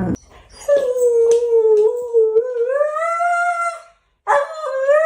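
A dog howling: one long howl of about three seconds that rises in pitch partway through, then a second howl starting near the end.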